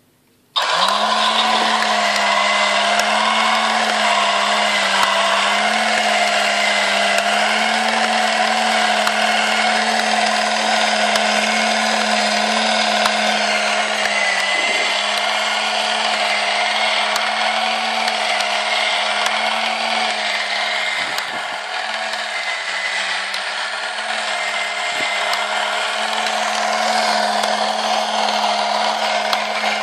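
Haynes transparent plastic model engine, driven by its small electric motor, switches on about half a second in and runs with a steady mechanical whine as it turns the model's crank and pistons; the pitch wavers slightly and it gets a little quieter about two-thirds of the way through.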